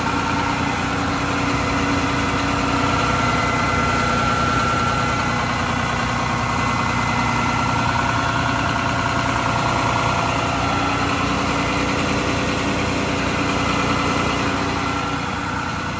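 John Deere 290G excavator's diesel engine idling steadily, heard at its open pump compartment, with a steady high whine over the engine note.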